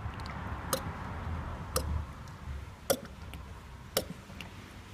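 Automatic transmission fluid pouring from a plastic bottle into a cut-down can used as a funnel: a soft flow sound that fades away, with a sharp tick about once a second, four in all.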